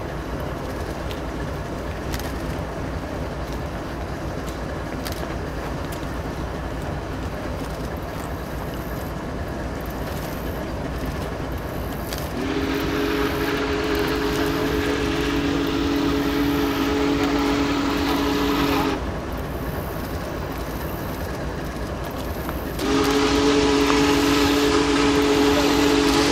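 Union Pacific Big Boy 4014's steam whistle sounding a chord of several notes: one long blast of about six seconds, then a second long blast starting about four seconds later. Before it, a steady background rumble.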